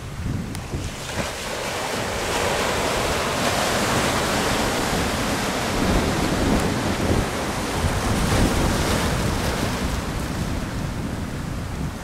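Ocean surf breaking and washing up a beach of round cobblestones, swelling about two seconds in and easing near the end, with wind buffeting the microphone.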